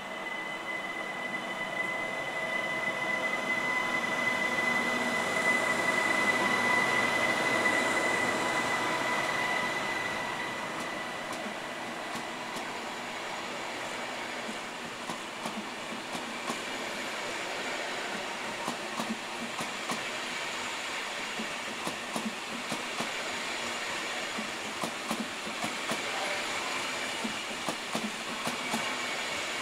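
ICE high-speed train departing: a steady high tone with a lower one beside it, loudest in the first ten seconds as the power car goes by, then the coaches rolling past with a quick run of wheel clicks over the track.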